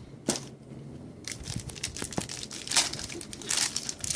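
Crinkling and tearing of a trading-card pack wrapper as cards are handled: one sharp crackle near the start, then a busy run of crackly rustling.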